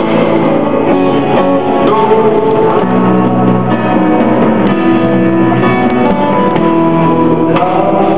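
Live band music: a wind instrument plays a melody of long held notes over guitar and drums.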